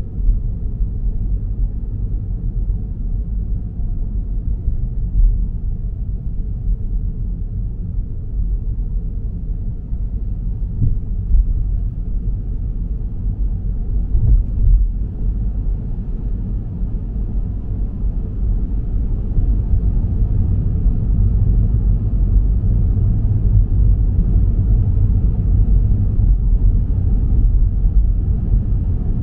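Steady, muffled low rumble of a car on the move: road and engine noise, growing slightly louder in the second half.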